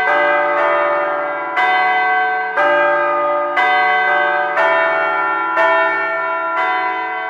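Church bells struck one after another, about one strike a second, each bell at a different pitch, their ringing overlapping into one continuous peal.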